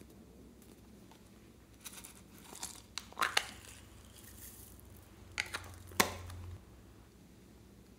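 Small crafting handling noises: sequins and glitter shaken from a small plastic cup into a glass dish, and foam squishy toys handled, heard as scattered crinkling rustles and clicks with a soft high hiss in the middle and a sharp click about six seconds in.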